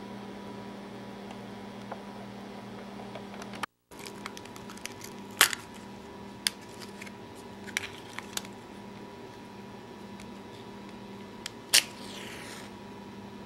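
A paper book match being handled and pulled from its matchbook, a few sharp clicks and rustles, then struck near the end: a sharp scrape and a hiss of about a second as the match flares. A steady hum runs underneath.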